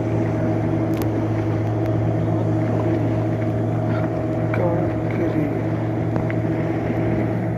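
Fishing boat's engine running steadily at constant speed, a low even hum with a steady pitch.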